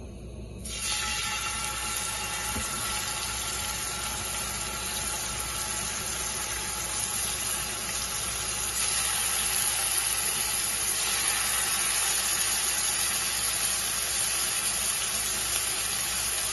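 Marinated boneless chicken pieces sizzling as they fry in hot oil in a cast-iron skillet. The steady sizzle starts about a second in and grows a little louder about halfway, as more pieces go into the pan.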